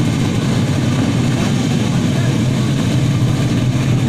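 Drag-racing motorcycle engines running in a steady, loud drone, with no clear rise or fall in revs.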